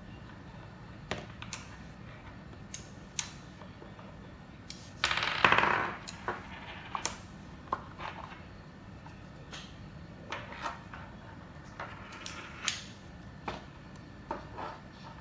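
Small magnets and stainless steel bars of a magnetic Polar Pen fidget toy clicking as they snap together and are pulled apart: scattered sharp clicks, with a short rattle of pieces about five seconds in.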